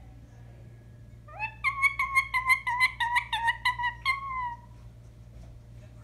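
Rose-ringed parakeet calling in a rapid string of short, sharp, pitched notes, about five a second for some three seconds, ending on one longer falling note.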